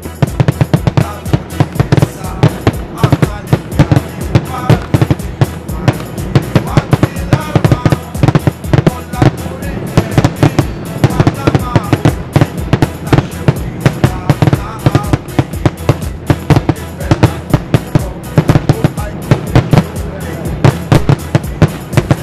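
A rapid, unbroken barrage of daytime fireworks aerial bombs going off, several sharp bangs a second, fired in quick succession from a ground launch site.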